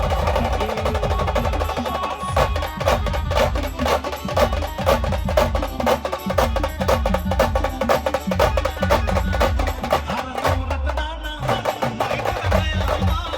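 Band music for dancing: a held melody over fast, dense drumming that comes in strongly about two seconds in, with a short break in the beat near the end.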